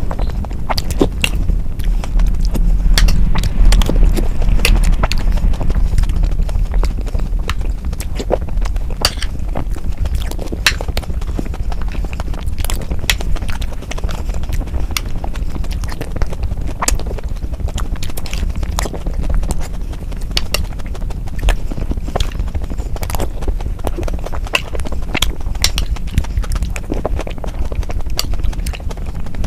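Close-miked eating sounds: wet chewing, smacking and mouth clicks from spoonfuls of soft, yogurt-soaked dahi vada, with a spoon clinking on a glass plate now and then.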